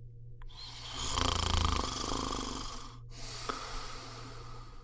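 One loud snore: a long buzzing, rattling in-breath, then a short pause and a softer breathy out-breath.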